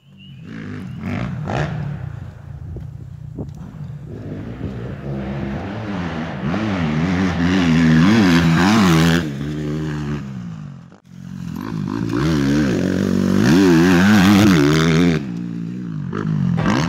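Suzuki motocross bike engine revving, its pitch climbing and falling again and again, with a brief drop-out about two-thirds of the way through.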